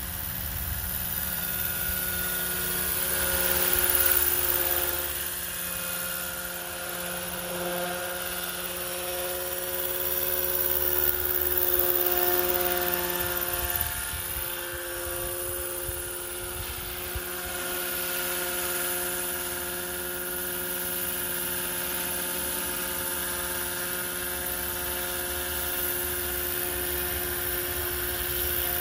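Roban EC145 super-scale RC helicopter spooling up, lifting off and flying past low. A steady whine drifts in pitch and swells louder about four seconds in and again around twelve seconds.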